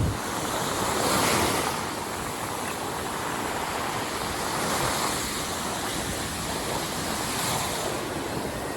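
Ocean surf breaking and washing up the beach: a steady rush of water that swells about a second in, again near the middle and once more near the end.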